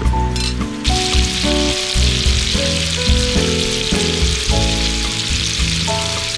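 A chicken thigh sizzling steadily in a hot griddle pan, starting about a second in. A melody of background music plays throughout.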